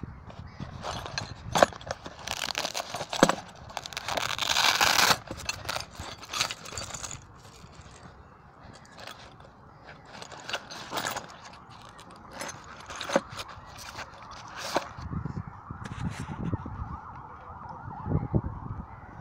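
Fabric tool bag being handled in a motorcycle's under-seat tray: irregular rustling, clicks and knocks, with a longer rasping burst about four seconds in.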